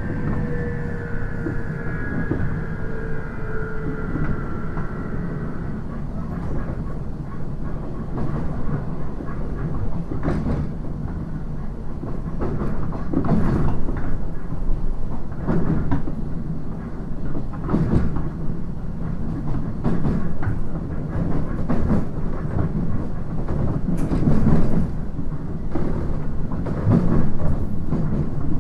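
JR East 719 series electric train running, heard from on board: a steady low rumble, with a whine falling slowly in pitch that fades out about six seconds in. From about ten seconds on the wheels clatter over rail joints every two to three seconds.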